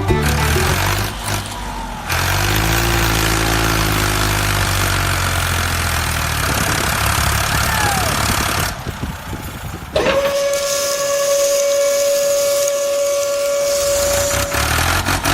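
A vehicle engine running steadily under loud hissing noise. About ten seconds in, a long, steady horn or whistle tone starts and holds for about five seconds.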